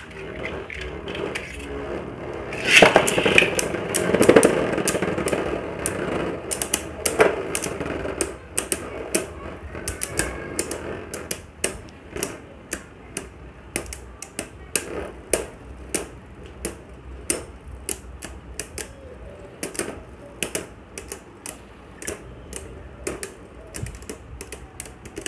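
Beyblade Burst spinning tops, World Spriggan and Tempest Dragon, battling in a plastic stadium. There is a loud rush about three seconds in as the second top is launched in, then a long run of sharp clicks, a few a second, as the two tops knock against each other while they spin.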